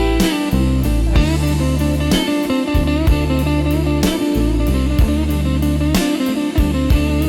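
Slow blues instrumental: electric guitar playing over a bass line and a drum kit keeping a steady slow beat.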